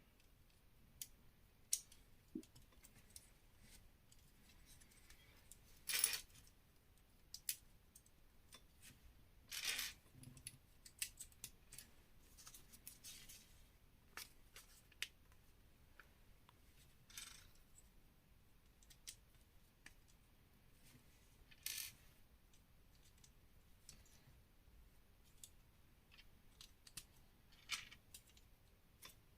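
Lego pieces being handled during a build: faint scattered clicks of small plastic bricks, with a few brief louder rattles, about five in all, spaced several seconds apart.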